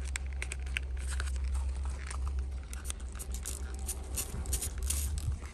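Trigger spray bottle and microfiber towel being handled as spray wax is applied: a run of crisp clicks and rustles, densest near the end, over a low steady hum.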